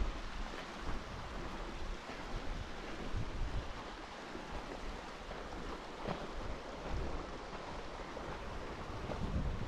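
Wind buffeting the microphone outdoors: a steady rushing hiss with uneven low rumbling gusts.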